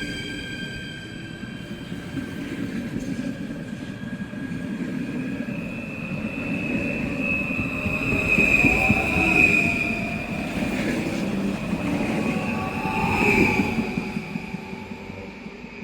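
A train running on the rails with a low rumble and a high, steady wheel squeal. The sound swells to its loudest about halfway through and again near the end, then fades.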